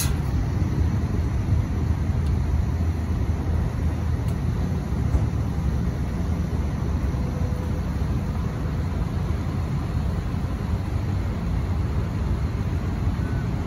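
Steady low rumble of heavy diesel excavator engines running, mixed with highway traffic noise.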